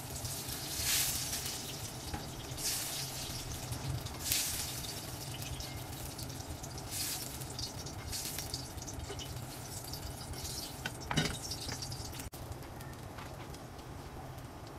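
Hot oil sizzling quietly in a stainless steel wok as fried eggplant pieces are lifted out with a spatula, with short flares of louder sizzle and spatula scraping every second or two.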